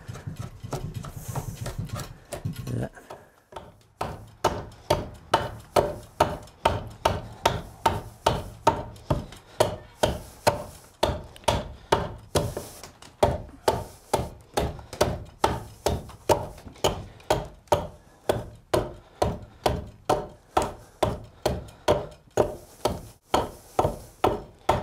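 A draw knife shaving along a wooden ox-yoke blank for the first few seconds. Then, from about four seconds in, a hand axe chops into the yoke's neck bow in a steady rhythm of about two strikes a second.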